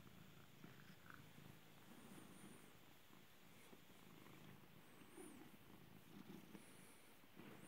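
Domestic cat purring faintly and steadily while it is stroked.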